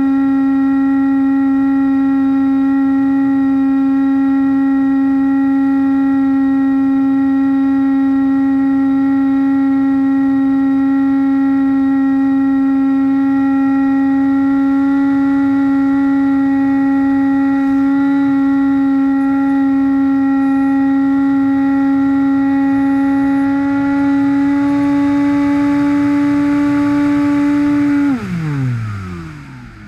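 Bixler RC plane's Turnigy D2826-6 2200kV brushless motor driving a 6x5 propeller, a loud steady drone at constant throttle. Near the end the throttle is cut and the pitch falls quickly as the propeller winds down, leaving softer air noise.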